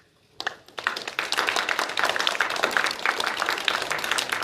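An audience applauding. The clapping breaks out about half a second in and quickly fills into dense, steady applause.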